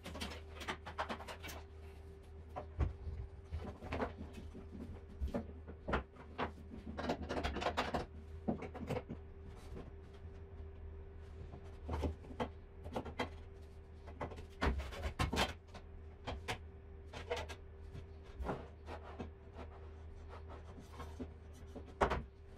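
Irregular knocks, clunks and rubbing as a mitre saw and hand tools are moved and set down on a plywood workbench, over a steady faint hum.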